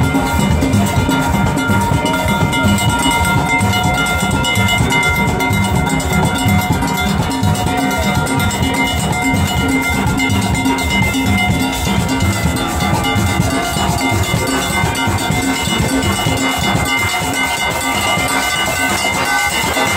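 A steel band playing live: many steelpans over a drum kit, with a steady beat.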